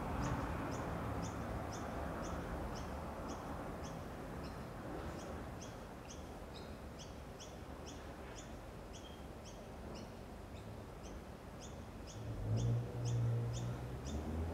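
Steady train of short high-pitched chirps from a small animal, about three a second, over a faint low background hum; a low rumble swells briefly near the end.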